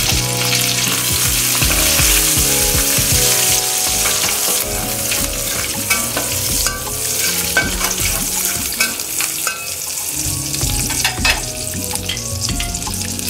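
Curry leaves, dried chilies, lemongrass and dried shrimp sizzling loudly in hot oil in a stainless steel wok. From about halfway through, a spatula stirs them, clicking and scraping against the wok.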